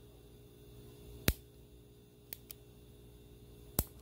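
Bic BU3 retractable ballpoint pen clicking as its retract mechanism is worked: two sharp clicks about two and a half seconds apart, with a softer quick double click between them, the tip pushed out by the plunger and let back in by the side release button.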